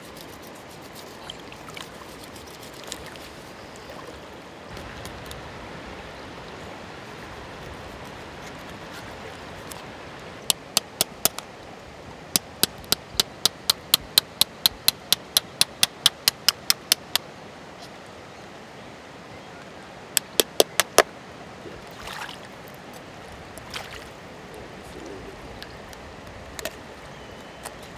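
Knife chopping scoring cuts into a pacu on a wooden board, a run of sharp taps about three a second for several seconds as the blade strikes the board, then a quick burst of four more. Shallow river water laps steadily underneath.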